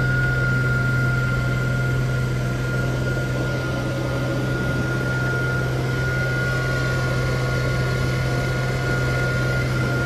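Versa silage bagger running, a steady machine drone with a steady high whine over it, as its spiked feed auger turns through chopped alfalfa hay in the intake bin.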